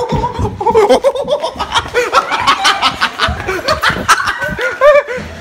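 Loud laughter in quick repeated bursts.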